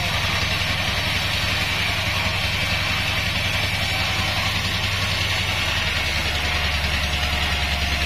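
Pandan Taiwan Bandsaw36 band sawmill running steadily, a low even machine hum with a hiss above it.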